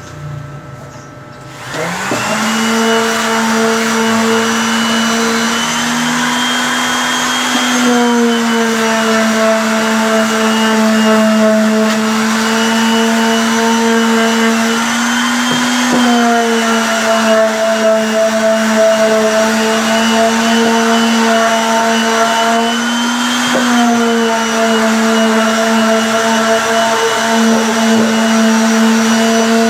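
Electric palm sander starting up about two seconds in, then running steadily while sanding plywood nest box panels smooth, its pitch shifting slightly a few times.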